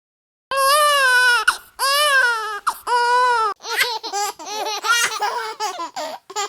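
A baby crying: three long wailing cries, then a run of shorter, choppier sobs.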